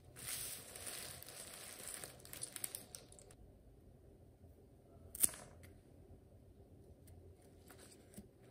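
Cellophane flower wrapping crinkling as it is handled for about three seconds, then a single sharp snip of scissors cutting through a flower stem a little after five seconds in.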